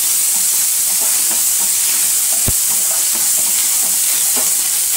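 Ginger and green chillies sizzling in hot oil in a frying pan, with a spatula stirring and scraping through them. One sharp knock about two and a half seconds in.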